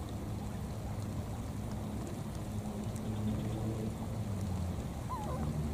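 Steady low motor-like hum with faint water sounds; about five seconds in, a baby monkey gives a short, high, wavering squeak.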